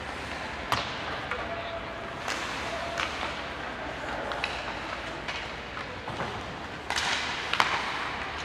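Ice hockey play in a rink: scattered sharp clacks of sticks and puck, the loudest about seven seconds in, over a steady arena hum with faint voices.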